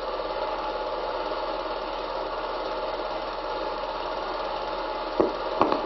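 Cine film projector running with a steady mechanical whirr and fast flutter. Two sharp clicks come near the end.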